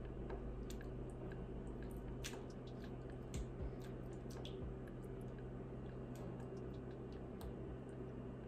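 Kitchen tongs turning chicken breasts in a thick cream sauce in a cast-iron skillet: soft squelching with scattered light clicks of the tongs against the pan. A steady low hum runs underneath.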